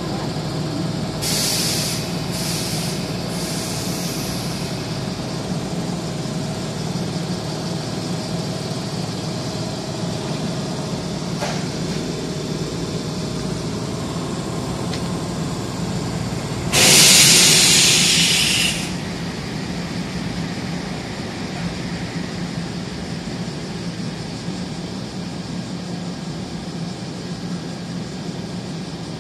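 Toyohashi Railway 1800 series electric train standing in the station with a steady machinery hum, which an onlooker guesses is its air compressor. Short hisses of compressed air come in the first few seconds, and one loud air release about 17 seconds in lasts about two seconds.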